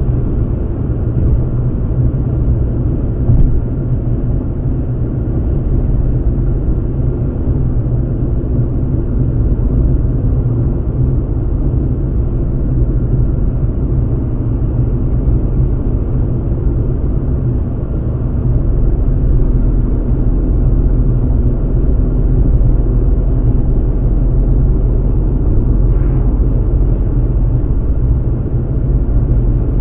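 Steady low rumble of a car's tyres and engine at motorway speed, getting a little louder about two-thirds of the way in.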